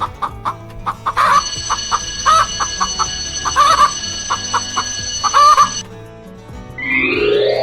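Chickens clucking: a string of short, repeated calls, with a steady high tone behind them for a few seconds. A rising swoop sound effect begins near the end.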